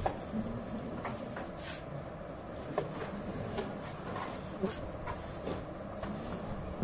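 Scattered light knocks and scrapes of a plasterer's trowel as cement mortar is scooped from a pan and thrown onto a brick wall, over a steady background hiss.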